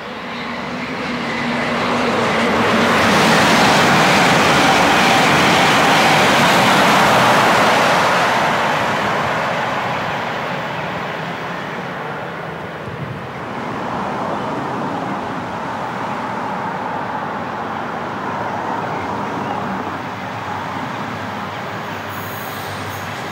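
A fast express passenger train passing through the station: its rumble and rush swell over the first few seconds, stay loud for several seconds, then fade away. A steadier, quieter train sound follows through the second half.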